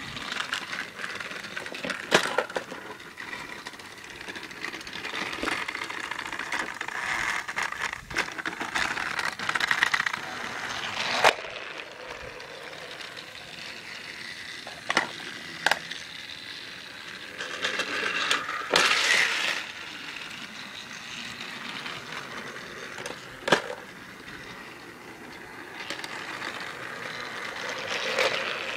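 Battery-powered TrackMaster Thomas toy engine running along plastic track, its small geared motor whirring and its wheels rattling over the track, getting louder and quieter as it goes around the layout. Several sharp clacks break in along the way, with a louder stretch about two-thirds of the way through.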